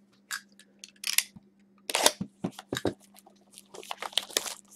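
Clear plastic shrink-wrap being peeled and torn off a Topps Finest trading-card box by hand: a scatter of short crinkles and rips, coming thicker near the end.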